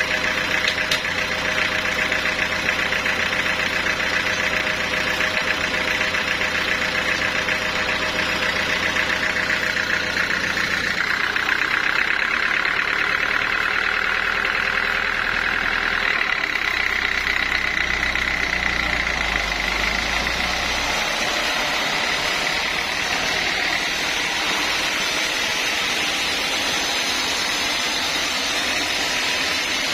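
Sawmill saw machinery running steadily while sawing mahogany, with an engine's low drone. The sound shifts about eleven seconds in, and again around sixteen and twenty seconds.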